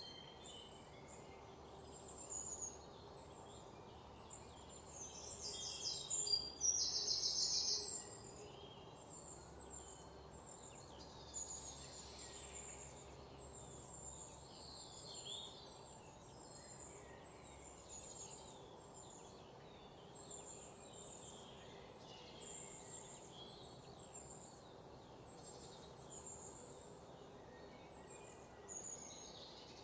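Faint outdoor ambience of many short, high chirps repeating throughout, with a louder buzzing trill about five to eight seconds in.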